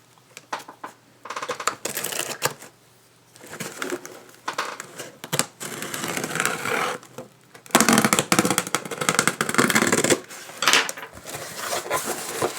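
A package being opened by hand: irregular clicks and scrapes of cardboard and packing, with a denser stretch of paper rustling for a couple of seconds past the middle.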